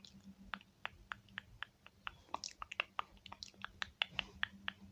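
Quick, crisp clicks and taps close to the microphone, several a second and unevenly spaced, over a faint steady low hum.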